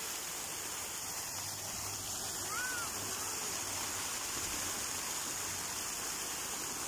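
Park fountain's water jets spraying and splashing into the basin: a steady rushing hiss of falling water.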